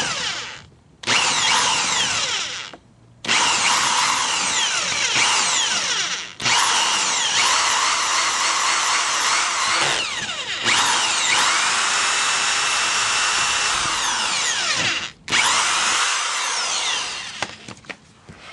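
Hand-held power drill drilling a mounting hole for a splash guard, run in about six bursts with short pauses between them, the pitch sliding as the speed changes.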